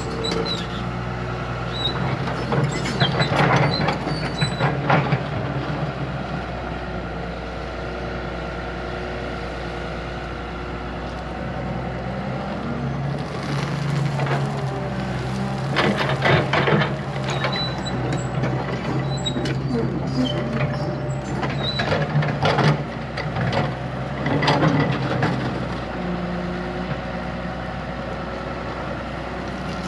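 Diesel engine of a heavy earthmoving machine running steadily under work, with clusters of knocks and rattles from its working gear a few seconds in, around the middle, and again in the later part.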